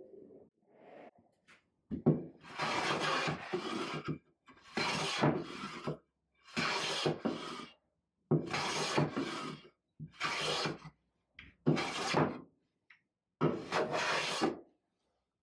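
A metal hand bench plane taking repeated strokes along a wooden board, about seven rasping passes of roughly a second each, each starting with a sharp click as the blade bites. The strokes are shaving off the sun-greyed, weathered surface of the wood.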